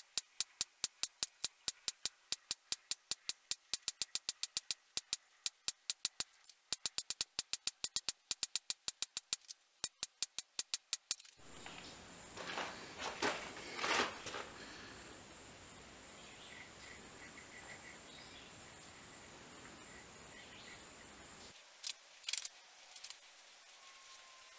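Steady run of light hammer taps on a ball-ended punch, texturing an annealed copper sword guard on a steel block. The blows come about four a second, with two short pauses, and stop about eleven seconds in. After that there is only a low hiss with a few faint knocks.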